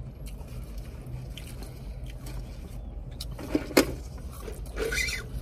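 Close-miked chewing and crunching on a fried chicken sandwich, with scattered sharp crunches, the loudest about two-thirds of the way in.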